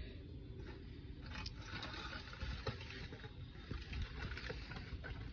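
Aluminium foil crinkling faintly as it is peeled back and opened, with scattered small crackles and clicks.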